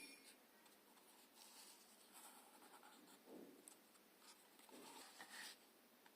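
Near silence with a few faint, short scratching and rustling sounds.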